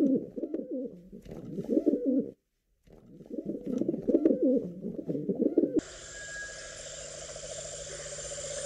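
Rock pigeons cooing: a run of repeated low, throaty coos, with a brief silent break about two and a half seconds in. Near the end it cuts abruptly to a steady background hiss and hum.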